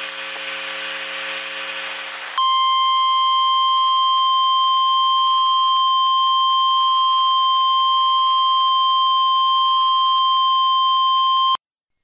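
Emergency alert warning tone: a single steady high-pitched tone, like the 1050 Hz NOAA Weather Radio alarm, held for about nine seconds and then cut off abruptly. It is preceded by about two seconds of harsh buzzing noise.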